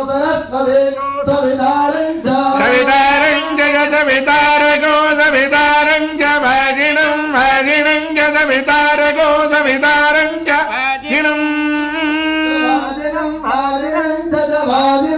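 A man singing a melodic, chant-like song with long held notes.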